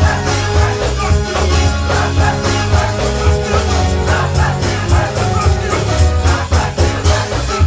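Church choir singing a gospel song with a band: heavy bass under the voices and a steady beat of hand percussion.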